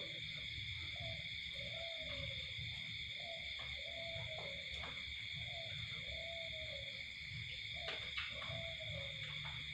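An animal giving short calls, each rising then falling in pitch, about one a second, over a steady high-pitched drone.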